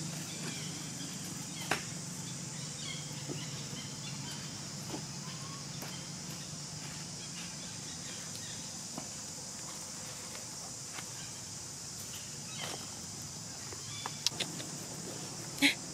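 Outdoor ambience of a steady, high insect drone, with scattered light clicks and rustles of dry leaves. A brief, sharp, high squeak stands out near the end.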